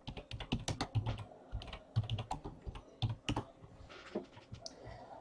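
Typing on a computer keyboard: quick, irregular key clicks that thin out after about three and a half seconds.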